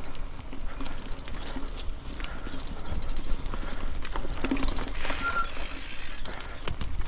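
Bicycle ridden over a rough forest track: irregular knocks and rattles as the wheels hit bumps, over a steady low rumble of tyres and wind on the microphone. A brief high squeak about five seconds in.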